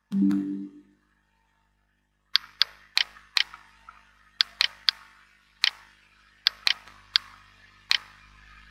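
Windows device-connected chime, two short rising notes, as a Samsung Galaxy A72 phone is plugged into the laptop by USB. About two seconds later comes a series of about a dozen sharp, irregularly spaced clicks.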